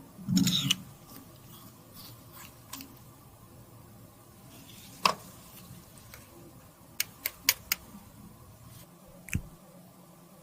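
Close-up handling sounds of cosmetics being repaired: a short scraping rustle about half a second in, then scattered sharp clicks and taps, with a quick run of four clicks about seven seconds in.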